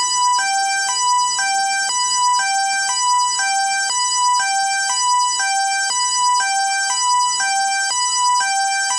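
SEGA UFO Catcher 9 crane-game machine's warning alarm: a buzzy electronic two-tone hi-lo alarm, alternating evenly between a high and a low note about every half second and repeating without a break.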